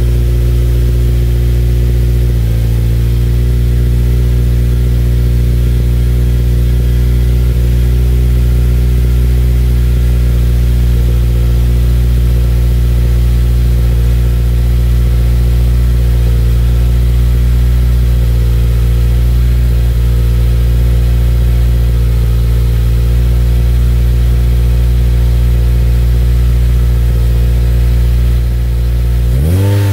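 Subaru WRX turbocharged 2.0 L flat-four idling steadily through a Killer Bee Swain-coated header, Cobb catted J-pipe and Cobb titanium cat-back exhaust, recorded at the tailpipes. The idle settles a little lower about two seconds in, and right at the end the revs start to climb into a rev blip.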